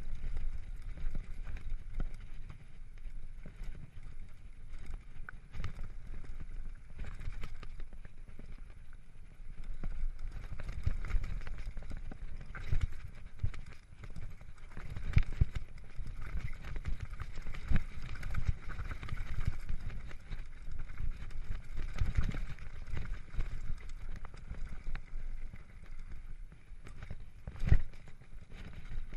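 Mountain bike ridden down a dirt forest trail: steady tyre rumble with many short knocks and rattles as the bike hits bumps, the sharpest hit near the end.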